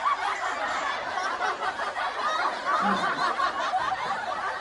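Laughter from several voices, dense and continuous.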